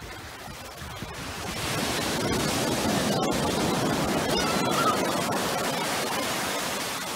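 Small waves breaking and washing up a sandy beach: a hiss of surf that swells about two seconds in and eases off toward the end.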